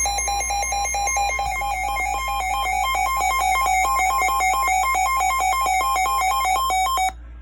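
Weather radio warning alarm: a harsh electronic tone warbling rapidly between two pitches, announcing a flash flood warning. It cuts off suddenly about seven seconds in.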